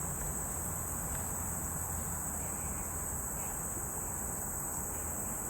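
Steady chorus of insects in swampy woods, a continuous high-pitched trill that does not break, with a low rumble underneath.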